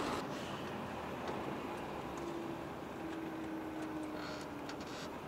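Steady, fairly quiet engine and road noise inside a moving truck's cab, with a faint hum at one pitch from about two seconds in until near the end.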